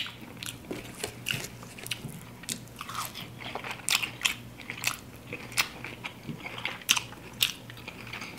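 A person biting and chewing crispy fried chicken wings: many sharp, irregular crunches of the fried skin between quieter chewing.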